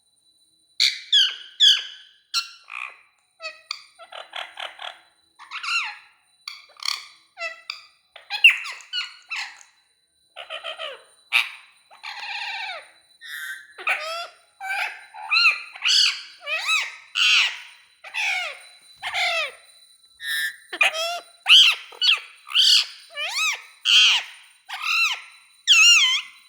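Pet parrot calling in a long run of short squawks, chirps and whistle-like notes. The calls are sparse at first, then come faster and louder from about halfway on.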